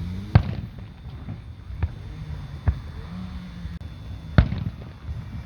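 Fireworks shells bursting in the distance: four sharp booms at uneven intervals. The loudest comes just after the start and another about four seconds in.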